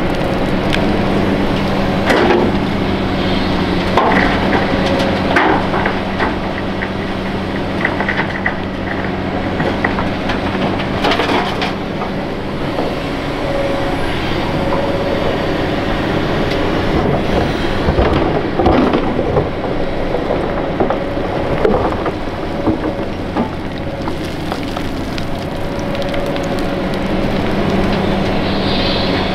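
Hitachi Zaxis 470 LCH excavator's diesel engine running steadily under working load, with a hydraulic whine that comes and goes. Scattered crunches and knocks from the bucket digging soil and dumping it into a truck are heard throughout.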